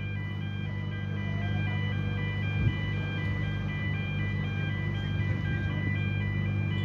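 Mobile X-ray cargo scanner truck at work scanning a lorry: a repeating pattern of high electronic warning beeps at several pitches over the steady low hum of its engine.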